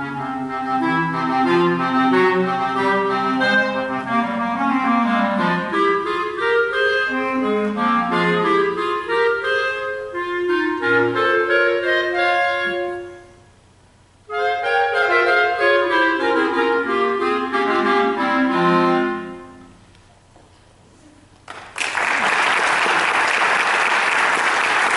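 Clarinet quartet of three clarinets and a bass clarinet playing several interweaving parts. The music stops briefly about 13 seconds in, resumes for a final phrase that dies away about 19 seconds in, and applause starts near the end.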